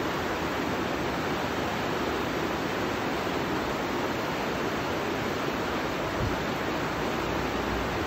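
River rapids rushing over boulders: a steady, unbroken white-water noise.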